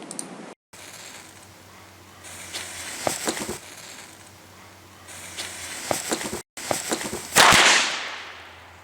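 Small firecrackers going off: two short runs of crackling pops, then one louder bang near the end that dies away slowly.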